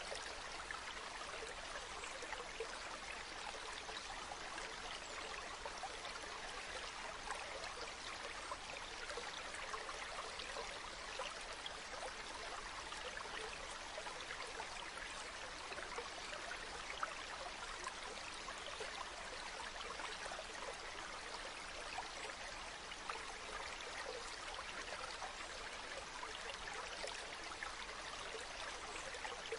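Shallow stream of clear water running over a pebble bed: a steady, even trickling with fine flickering splashes.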